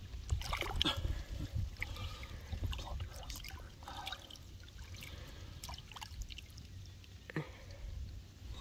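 Water splashing and trickling around a hooked sturgeon being brought in and handled, with scattered short knocks and scrapes.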